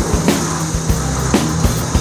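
Background music with sustained low tones and a beat of short drum hits.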